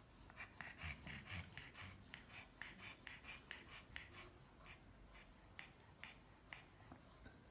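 Pug panting faintly, quick raspy breaths about four a second through its open mouth, stopping near the end.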